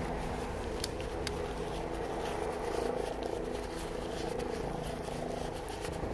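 Steady low hum and rumble of background noise, with a few short sharp clicks.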